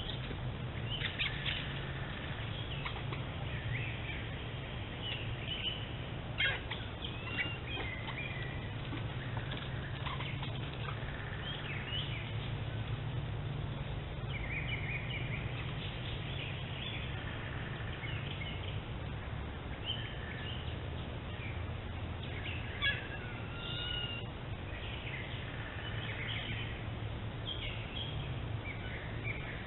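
Small birds chirping and calling on and off over a steady low hum, heard through a trail camera's built-in microphone, with a few short sharp taps.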